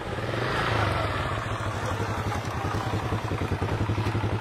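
Small motorcycle engine running as the bike rides up. It gets louder about a second in, then holds a steady, even beat as the bike slows and pulls up.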